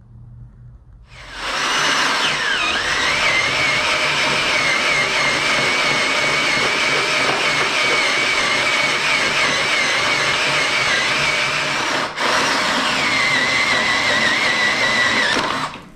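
Cordless drill boring a hole through a steel plate, running steadily under load with a high, wavering whine. It starts about a second in, dips briefly about twelve seconds in, and stops just before the end as the bit breaks through the steel.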